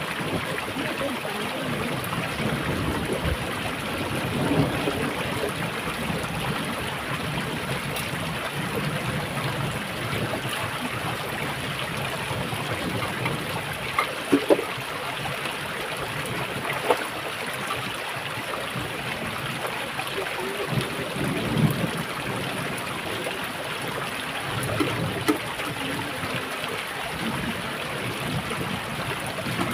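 Small stream running over rocks with a steady trickle, broken by a few short clinks and knocks from metal cooking pots being handled.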